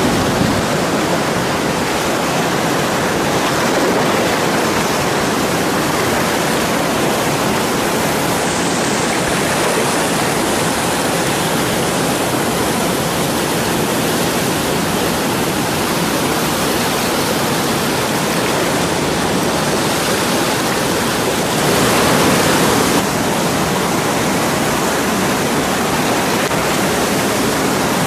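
Whitewater of a large river rapid: a steady rushing noise, briefly a little louder about three-quarters of the way through.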